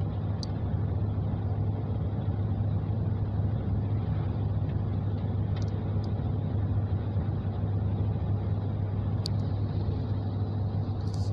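Steady low drone of a car's engine and tyres on the road, heard from inside the cabin while driving.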